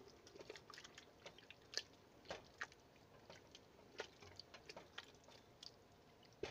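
Faint wet squelching and scattered light clicks of a spoon stirring a thick crushed-tomato mixture in a stainless steel stockpot.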